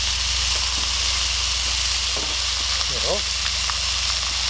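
Beef burger patties sizzling in a hot cast iron skillet over a camping gas stove: a steady, even frying hiss.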